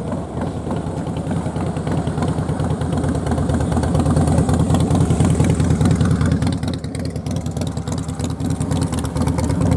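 Piston engines of vintage warbird aircraft running with a fast, rough, pulsing rumble, swelling about four seconds in and easing a little near seven seconds.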